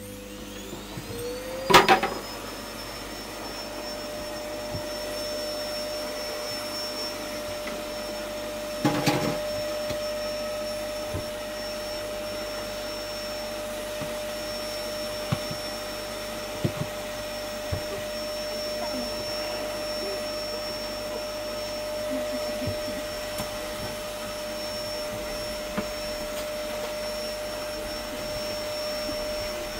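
A small electric motor whining up to speed over the first two seconds, then running steadily. A loud knock comes as it reaches speed, and another about nine seconds in.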